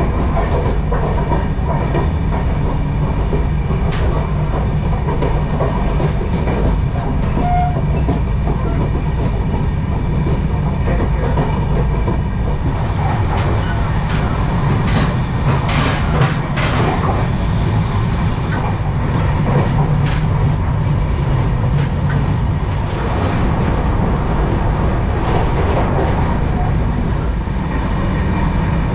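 Express passenger train running at speed, heard from inside the coach: a steady rumble of wheels on the track, with sharper clicks from rail joints that bunch up about halfway through.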